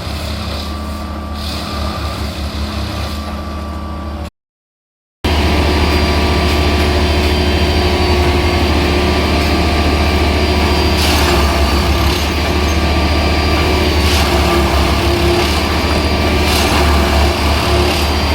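Heavy diesel engine of a Plasser & Theurer track machine running steadily with a deep hum. The sound drops out for about a second roughly four seconds in and returns louder, and a few short hisses come later on.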